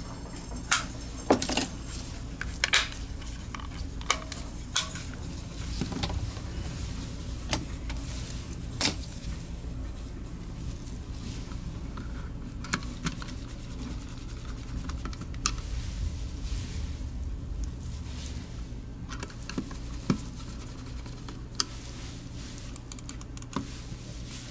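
Scattered sharp plastic clicks and ticks from a Razer Orochi V2 mouse being reassembled by hand: shell parts handled and fitted and screws driven in with a small screwdriver. A steady low hum runs underneath.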